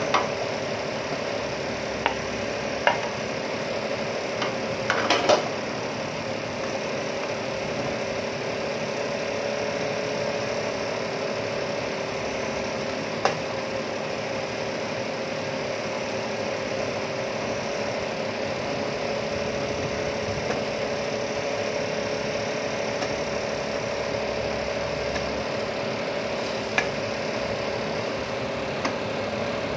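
Pork intestines frying in a stainless steel pot, a steady sizzle under a low steady hum, with a wooden spoon stirring and now and then knocking sharply against the pot, several times in the first few seconds and twice later.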